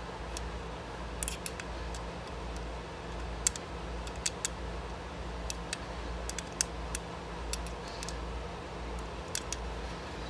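Light, irregular clicks of a small hex key being turned and re-seated in the screw of a pistol magazine extension as it is hand-tightened. A low steady hum runs underneath.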